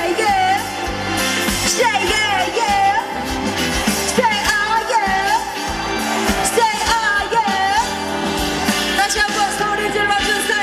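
Female pop vocalist singing live into a handheld microphone over pop backing music, in phrases with gliding, bending pitch.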